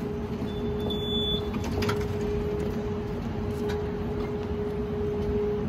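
Steady electrical hum in the ambience of a large railway station hall, with a short high beep about a second in from a contactless ticket gate's card reader.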